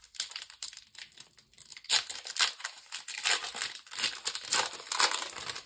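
Foil Pokémon TCG booster pack wrapper being crinkled and torn open, an irregular crackling that is loudest about two seconds in and again near the end.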